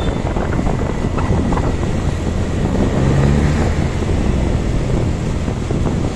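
Wind buffeting the microphone of a moving motorcycle, with the bike's engine running underneath.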